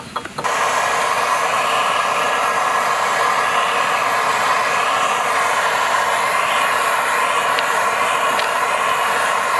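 A loud power tool runs without a break for about nine seconds, starting about half a second in and then cutting off suddenly; deafening up close.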